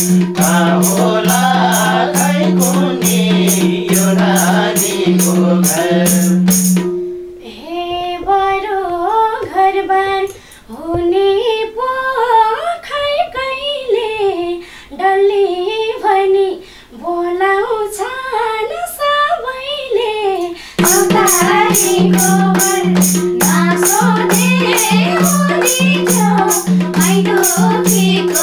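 Nepali lok dohori music: a madal drum beat over a steady drone. About seven seconds in the instruments stop and a woman sings a verse almost alone. The full accompaniment comes back about two-thirds of the way through.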